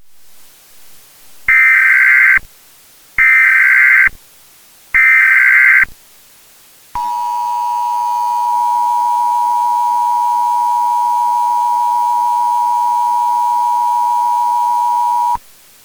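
Emergency Alert System tones: three short bursts of SAME header data tones, each about a second long, then the steady two-tone EAS attention signal held for about eight seconds before it cuts off suddenly. Together they announce an emergency alert broadcast.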